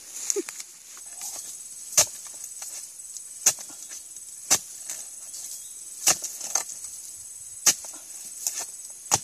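A blade chopping into the stalks of an oil palm: six sharp strikes about a second and a half apart, over a steady high buzz of insects.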